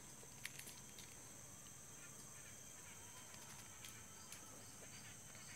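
Near silence: faint steady chirring of crickets, with a few soft clicks as a hand stirs dried, pounded coffee beans and husks.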